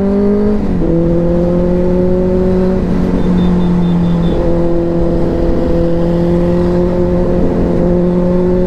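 Benelli TNT 600i inline-four motorcycle engine under way. The revs climb, then drop suddenly under a second in, and it holds a steady cruising note with a couple of brief dips.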